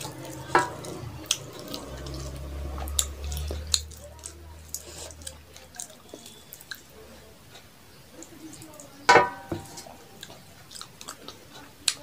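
Fingers squishing and kneading wet rice and curry on a metal plate, with small sticky squelches and clicks, mixed with soft chewing. About nine seconds in there is one sharper knock with a short metallic ring off the plate.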